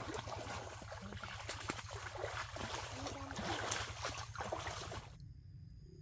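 Water splashing and sloshing as large fish thrash in shallow muddy water, a dense run of splashes that cuts off suddenly about five seconds in.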